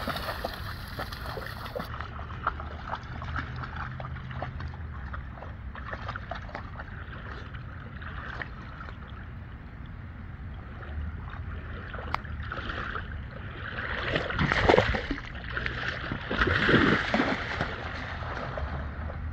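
A dog wading and splashing through shallow floodwater, with a run of small sloshes and splashes. Two louder bouts of splashing come in the last third as it runs through the water.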